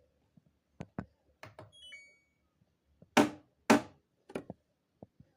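Objects tumbling inside an LG washing machine drum: irregular knocks and thuds as they drop, with two loud thumps about half a second apart roughly three seconds in and a brief high ringing ping near two seconds.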